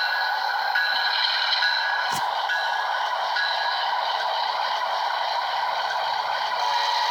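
Train rolling past: steady scraping rail noise with thin high-pitched tones coming and going, and one sharp click about two seconds in.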